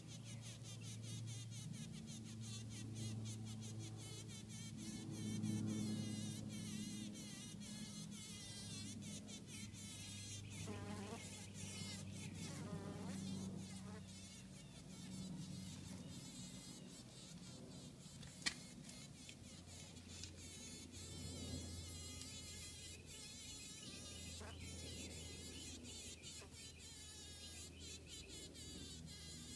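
Honey bee caught in a spider web buzzing its wings in a low drone that shifts in pitch as it fights the spider. A single sharp click comes a little past the middle.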